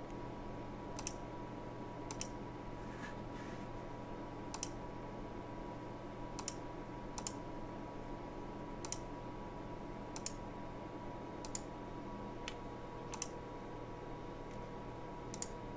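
About ten single computer-mouse clicks, spaced irregularly a second or two apart, over a steady electrical hum.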